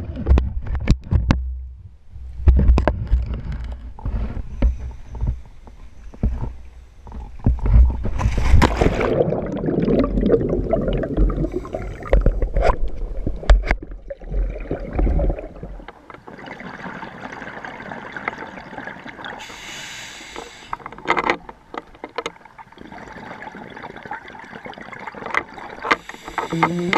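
Low rumble with handling knocks on a dive boat, then underwater a scuba diver breathing through a regulator, with two short surges of exhaled bubbles.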